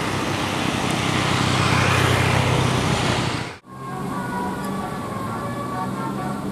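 A bus passing close, its engine and road noise building for about three seconds, then a sudden break. After the break, a multi-tone telolet horn plays a tune of short, steady, stepping notes over the idling engine.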